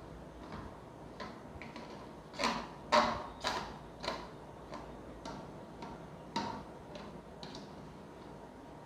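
A spoon stirring a thick marinade in a bowl, clicking and knocking against the bowl's side at an uneven pace, with the loudest knocks about two and a half to three and a half seconds in.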